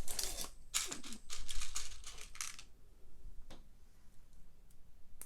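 Small plastic Lego Technic pieces clattering and clicking as they are rummaged through and picked up. It is busy for the first two and a half seconds, then only a few scattered clicks.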